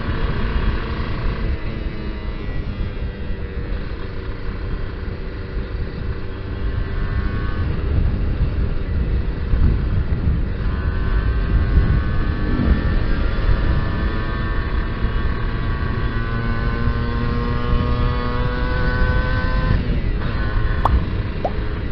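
Kawasaki Ninja R two-stroke single-cylinder engine under way, its carburettor set rich. Its pitch climbs slowly as it pulls, breaking off a few times as it shifts, over a low wind rumble on the helmet microphone.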